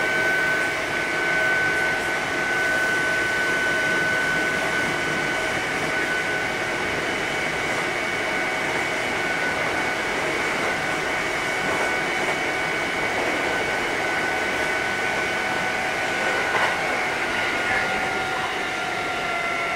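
Kintetsu 8000 series electric train running between stations, heard from inside the car: steady rolling and rail noise under a high whine that slowly sinks in pitch.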